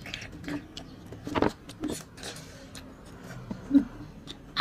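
Close-up eating sounds: chewing and handling food, with irregular small clicks and crunches and a louder knock shortly before the end.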